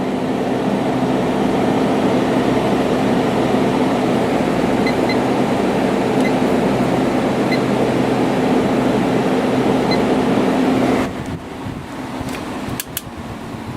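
Hampton Bay 5,100 BTU window air conditioner (Fedders-built) running with its compressor on and the fan on high: a steady rush of air over a low, smooth compressor hum. About eleven seconds in, the air noise drops sharply as the fan is turned down, and a few sharp clicks follow.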